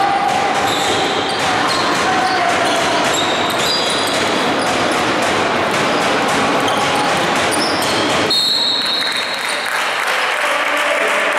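Basketball game on a hardwood court in an echoing sports hall: the ball bouncing and players' sneakers squeaking, over a steady din of voices.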